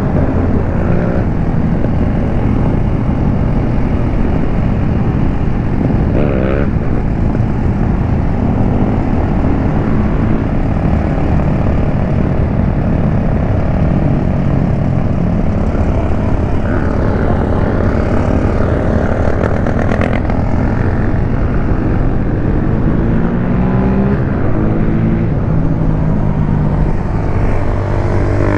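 Motorcycle engine running at riding speed under steady wind noise, its pitch rising and falling a few times as the throttle opens and closes.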